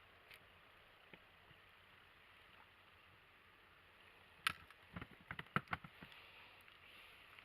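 Faint quiet background, then a sharp click about four and a half seconds in, followed by a quick clatter of knocks and taps lasting about a second and a half, from handling gear in a small inflatable boat.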